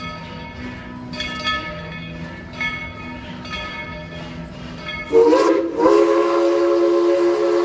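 Steam locomotive's chime whistle blowing: a short toot about five seconds in, then a long held blast of several steady tones sounding together. Before it, quieter repeated pitched sounds.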